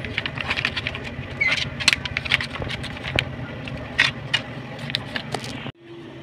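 Plastic condiment pouches crinkling and rustling in the hand as they are packed into a cardboard box, in many short, sharp crackles over a steady low hum. Near the end the background drops abruptly to a quieter hum.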